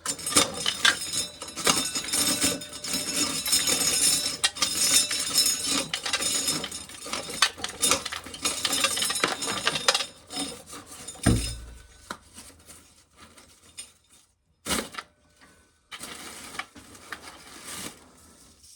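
Dry shelled corn kernels rattling and clattering as they pour into a tub, dense for about ten seconds and then in scattered handfuls. A dull thump comes about eleven seconds in, and a sharp knock a few seconds later.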